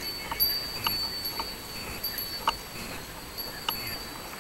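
Japanese wind chimes (furin) ringing in the breeze: several separate light strikes over a high, lingering ring.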